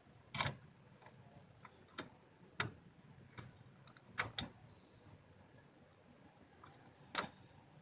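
Scattered light clicks and knocks from hands handling tools and parts, about six in all at irregular intervals; the sharpest comes near the end.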